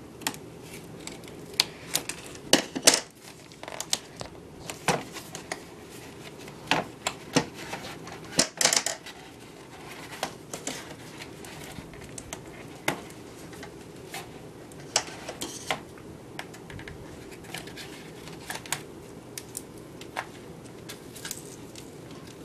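Flat cardboard shipping sleeve being slit and pried open by hand: irregular sharp clicks, scrapes and short tearing noises of stiff card, over a faint steady hum.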